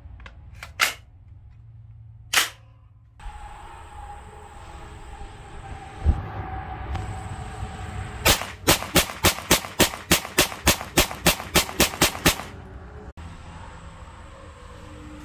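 Two sharp metallic clacks as a magazine is loaded into a CZ Scorpion EVO 9mm. After that come a single gunshot about six seconds in and then a rapid string of about seventeen shots at roughly four a second, from the Scorpion fired outdoors.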